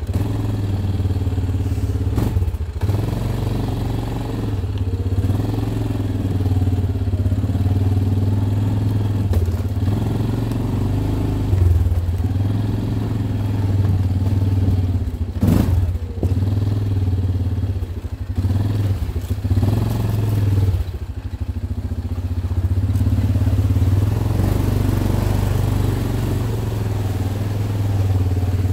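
ATV engine running while riding a muddy, rutted trail, its pitch rising and falling with the throttle. A sharp knock cuts through about halfway in, with a smaller one a couple of seconds into the ride.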